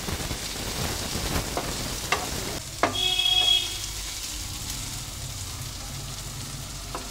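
Chopped tomato and onion sizzling in hot oil in a non-stick frying pan, stirred with a wooden spatula that knocks against the pan several times. A brief high tone sounds about three seconds in.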